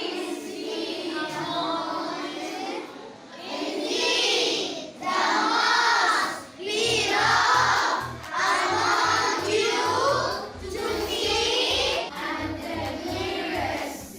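Children singing together in chorus, with a low rhythmic drum beat joining in about halfway through.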